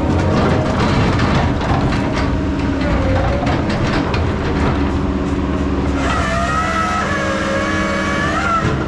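Diesel engine of heavy logging equipment running steadily, with scattered metal knocks and clanks. A wavering high whine joins in at about six seconds and stops just before the end.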